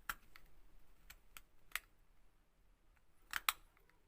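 Faint, irregular clicks and scrapes of a small tool working at the LED bulb's board as a burnt LED chip is removed, with a louder pair of clicks a little over three seconds in.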